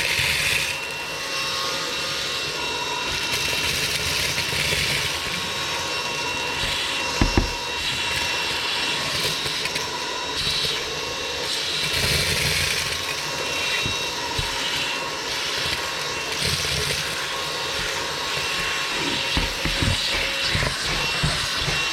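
APOSEN H20-4 cordless handheld vacuum running on its full-power setting, a steady whine with several held tones, vacuuming up spilled cereal. A few short knocks come through, the loudest about seven seconds in and several more near the end.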